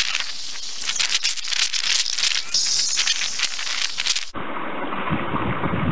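Jet of water from a hose nozzle spattering into a plastic tub: a dense, steady crackling hiss as the tub fills for a flow test. A little over four seconds in, it cuts abruptly to a duller, more muffled rushing.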